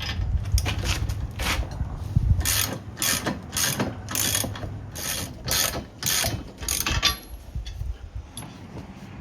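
Socket ratchet wrench clicking through repeated back-swings, about two a second, as a bolt on the bike rack is tightened; the ratcheting stops about seven seconds in.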